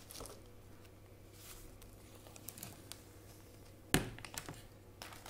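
Quiet handling of a tablet in its leather-like carrying case: light taps and rustles, with a single sharp click about four seconds in.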